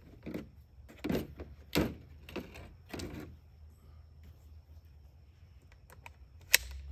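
Handling noises from an ERMA EMP submachine gun: a few separate dull knocks and rattles, then one short, sharp metallic click near the end. No shots are fired.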